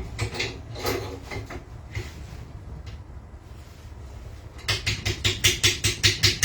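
Metal clicks and clinks from hand work on engine parts. About five seconds in comes a quick, even run of sharp clicks, around five a second, over a low steady hum.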